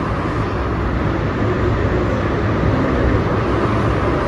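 Large evaporative air cooler's fan running, a steady rushing noise with a deep low end.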